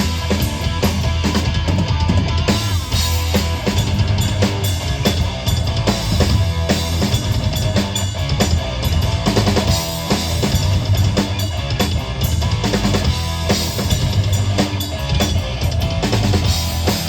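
Rock band playing an instrumental passage with the drum kit to the fore: bass drum and snare hits with rimshots over the band.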